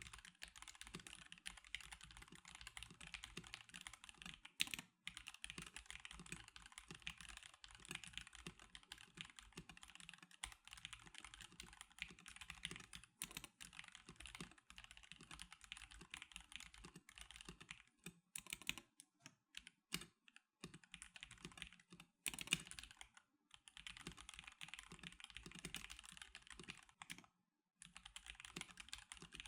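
Quiet, fast continuous typing on a stock NovelKeys NK87 Darkshake Edition mechanical keyboard. A few keystrokes stand out louder, and the typing thins to scattered strokes about two-thirds of the way through.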